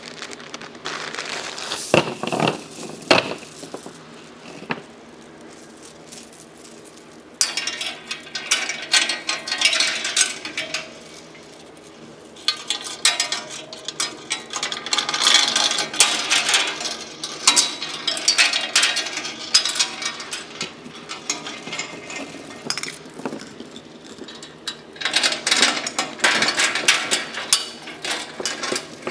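Small metal chains rattling and clinking while they are handled and fitted to a steel welding cart's gas-cylinder rack, in several bursts of rapid jingling with short pauses between.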